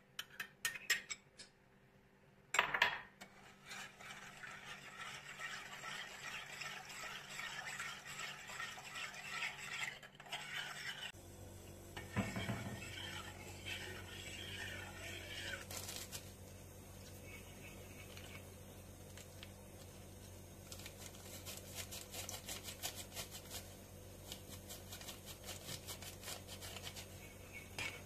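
A metal spoon clinking and scraping as it stirs milk, flour, sugar and egg yolk in a stainless steel pot, with a sharp knock about two and a half seconds in. Once the pot is on the hob a low steady hum sets in under the stirring, and for the last several seconds a wire whisk beats quickly against the pot in a run of rapid clicks.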